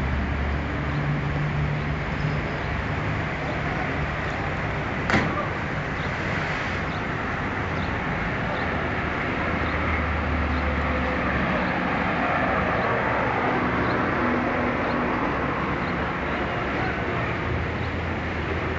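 Road traffic on a bridge: a steady rumble and hiss that swells as vehicles pass, with one sharp click about five seconds in.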